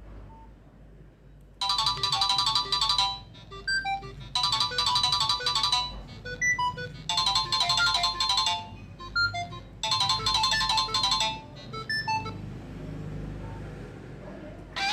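A Nokia 3595 ringtone playing through a Nokia 3120 classic's loudspeaker: a polyphonic melody of short electronic notes. It begins about a second and a half in, with a busy phrase coming back about every three seconds and single notes in between.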